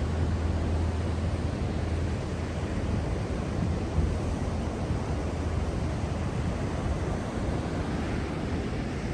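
Wind buffeting the microphone over the wash of surf on a beach, with a low engine hum that fades about two seconds in.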